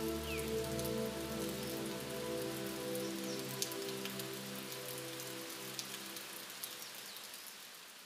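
Steady rain hiss with scattered individual drop hits, over a soft sustained music chord, with a few short chirps. The whole mix fades down over the second half.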